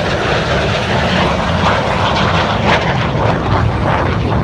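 MiG-17 jet fighter's afterburning turbojet engine during a flypast: loud, steady jet noise with a deep rumble underneath.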